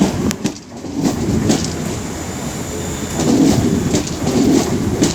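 Class 350 Desiro electric multiple unit pulling out of the station, with steady running noise and a few clicks from the wheels over the rail joints in the first second or so.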